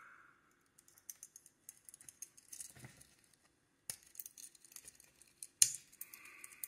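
Stainless steel link bracelet of an LPW Luna One watch clicking and clinking softly as the watch is handled and turned over, with a sharper click about four seconds in and a louder one near the end.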